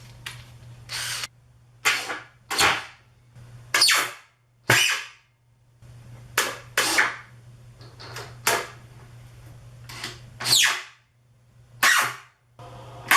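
Cordless drill/driver run in a dozen or so short trigger bursts, drilling pilot holes and driving drywall screws into MDF panels, some bursts winding down in pitch as the trigger is released. A steady low hum sits underneath.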